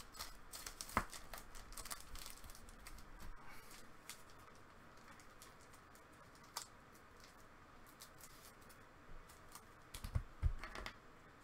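Plastic trading-card holders and sleeves being handled: light clicks and rustling in the first few seconds, a single click midway, and a few more clicks with a soft thump near the end.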